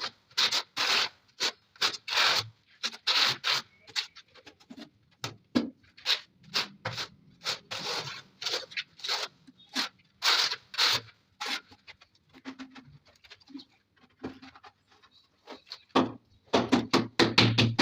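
Repeated scraping and rubbing strokes of a hand tool or cloth on a tiled wall, about two strokes a second, thinning out before background music with a drum beat starts near the end.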